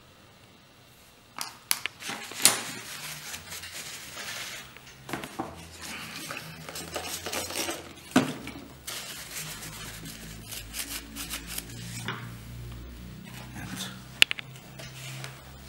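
Handling noise of small plastic parts: irregular sharp clicks and taps, with a paper tissue rustling as a part is wiped.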